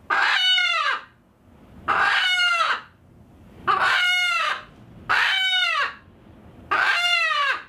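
A chicken gives five loud squawks, each under a second long and falling in pitch, spaced about a second and a half apart.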